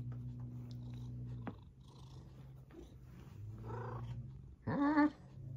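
Domestic cat purring while being scratched under the chin, a sign of contentment; the purr stops about a second and a half in and comes back faintly later. Near the end there is a short, wavering vocal call, the loudest sound here.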